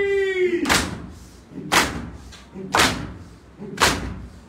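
Two-handed matam: a group of mourners strike their chests with both hands in unison, giving a sharp slap about once a second, four times. Before the first slap, a reciter's held sung note of the noha falls and ends.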